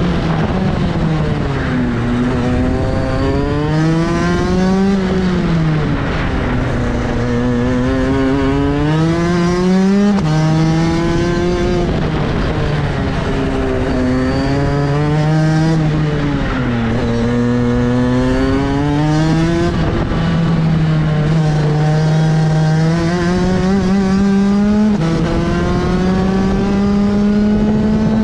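Go-kart engine heard from the driver's seat, its revs dropping as the kart slows into each corner and climbing again on the throttle out of it, over and over, with a long steady climb in pitch near the end as it runs down the straight.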